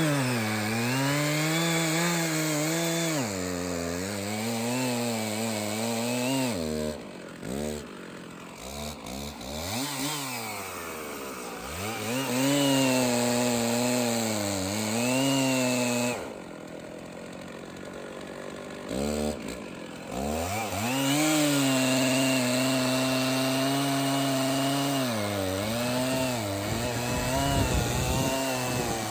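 Stihl 066 two-stroke chainsaw cutting through a big red oak log, its engine speed wavering as the chain loads up in the cut. Twice the throttle eases off and the saw drops to a lower, quieter speed for a few seconds before revving back up and cutting again.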